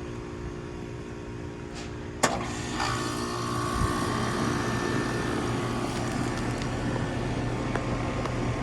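Air-conditioner hum, then about two seconds in a sharp click as an old Heil 5000 outdoor condensing unit kicks on. It comes up to a louder, steady running sound.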